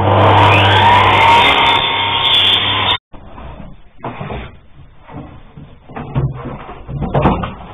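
Electric miter saw running and cutting through a sliding-door profile: a loud, steady motor hum and cutting whine that cuts off suddenly about three seconds in. Quieter scattered knocks and handling sounds follow.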